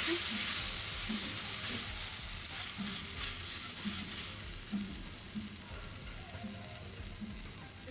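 Water sizzling in a hot cast-iron skillet as roasted wheat flour, ghee and sugar for ginger halwa is stirred with a silicone spatula; the sizzle slowly fades over the seconds.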